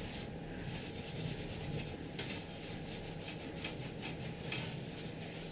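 Cloth wiping the aluminium print bed of a Creality CR-10 3D printer clean with isopropyl alcohol: continuous rubbing strokes, a few of them sharper, about two, three and a half and four and a half seconds in.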